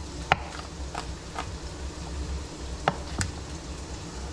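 Chef's knife chopping garlic on a plastic cutting board: about half a dozen sharp, irregularly spaced knocks of the blade on the board.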